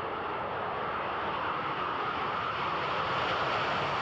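Steady jet noise from an EF-111A Raven's twin turbofan engines as the jet flies past.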